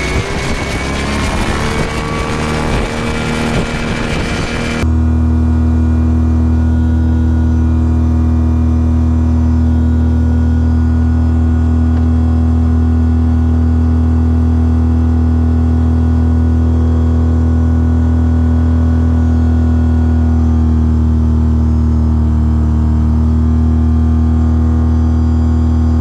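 Self-launching glider's retractable propeller engine running at full power for the takeoff. For the first few seconds its tone rises slightly under a rush of noise, then from about five seconds in it is a steady, loud drone.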